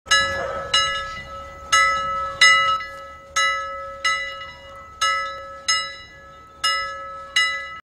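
Intro music of struck bell-like chime notes: about ten strikes, each ringing and fading, over a steady held tone.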